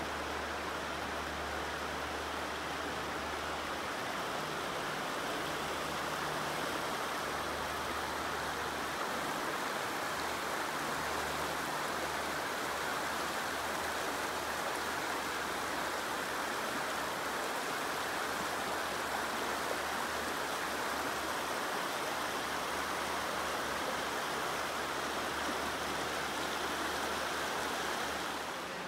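Shallow river running over rocky riffles and small rapids: a steady rush of water.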